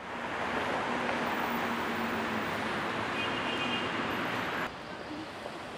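City street ambience: a steady wash of traffic noise that drops suddenly in level a little before the end.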